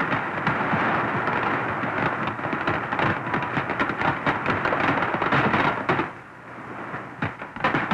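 Huge underwater rock blast: a continuous rushing, crackling noise of water and rock debris falling, with many sharp cracks. It drops off about six seconds in, then a few sharp cracks return near the end.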